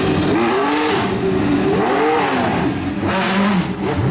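Car engine revving, its pitch swinging up and down in several throttle blips.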